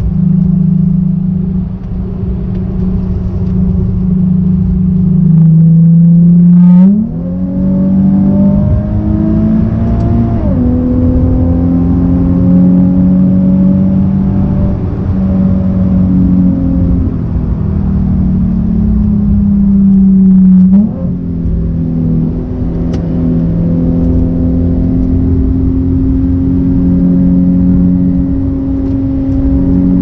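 Nissan 370Z's 3.7-litre V6, heard from inside the cabin while being driven hard. The engine note rises and falls in pitch as it revs, with sharp upward jumps and short dips in loudness at the gear changes of the manual gearbox.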